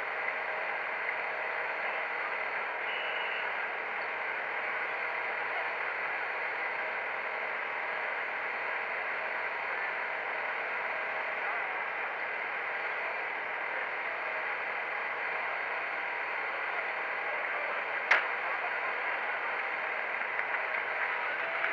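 Steady hiss of outdoor background noise, with one sharp crack about eighteen seconds in.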